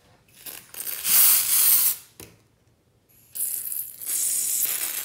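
Aerosol can of carnival spray streamer (silly string) sprayed in two bursts of hissing: a short one about a second in, then a longer one from about three seconds in.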